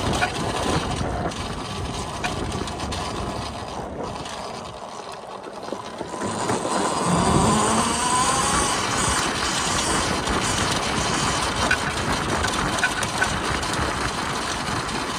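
Volcon Grunt electric off-road motorcycle riding over rough dirt: steady tyre and chassis rattle. After a quieter stretch, the electric drive's whine rises as it accelerates about seven seconds in.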